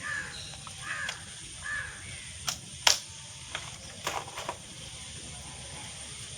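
A crow cawing three times in quick succession, short calls dropping in pitch, followed by a few sharp clicks or knocks.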